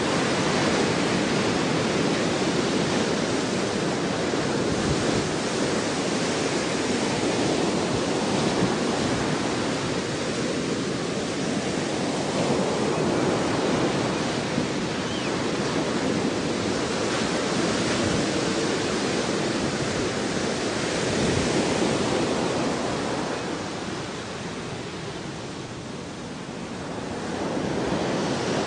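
Ocean surf: a continuous rush of waves that swells and eases slowly, dropping back for a few seconds near the end before building again, with some wind mixed in.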